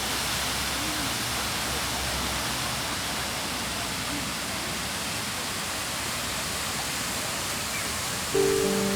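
A steady, even hiss that does not change, with soft music coming in near the end.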